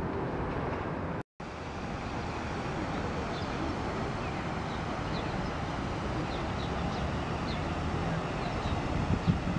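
Steady outdoor city background of road traffic, with wind noise on the microphone. The sound drops out for a moment about a second in, and faint short high chirps come and go.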